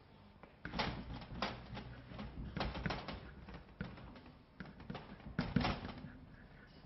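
Chalk tapping and scraping on a blackboard as words are written, in a string of irregular short strokes starting about a second in.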